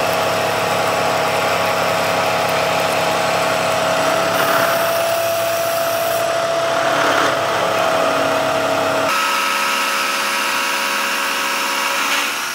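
Milling machine facing a thick aluminium plate with a large face mill: a steady whine from the spindle and cut. Midway a hiss of coolant mist spray joins in, and about nine seconds in the sound changes abruptly, the low hum dropping away and a higher tone taking over.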